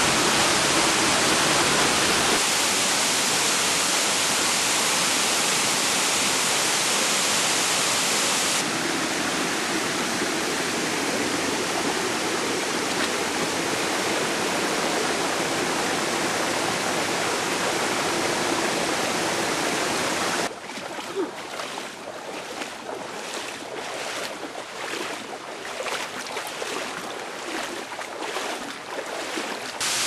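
Rushing water of a forest stream and waterfall, a steady even rush that changes abruptly several times; about two-thirds of the way in it drops to a quieter, uneven splashing.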